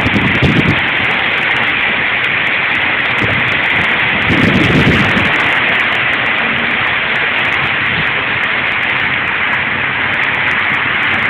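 Hailstorm: hail and heavy rain pelting wet pavement, a dense steady hiss flecked with sharp ticks of hailstones. It swells briefly at the start and again about four seconds in.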